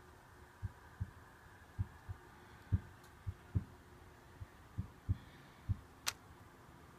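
Chandler and Price 10x15 platen press running, heard as short dull low thumps, often in pairs and about two a second, with one sharp click about six seconds in.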